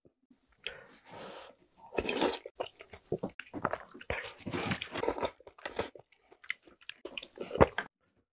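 Close-miked eating sounds of chewy jjolmyeon noodles with soft tofu in spicy broth: wet chewing and slurping that come and go unevenly, loudest near the end.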